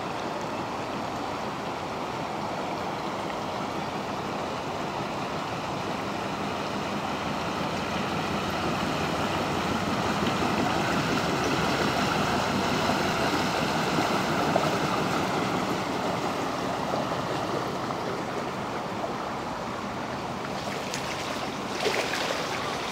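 Steam launch passing on a lake: the rush of water from its wash and its running steam plant, swelling as it comes close about halfway through and fading as it moves away. A brief knock near the end.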